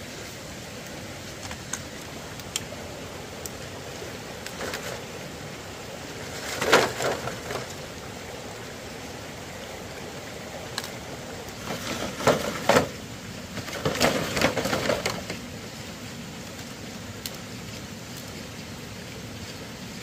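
Steady outdoor hiss with a few sharp single clicks and three short bouts of knocking and rustling from manual work.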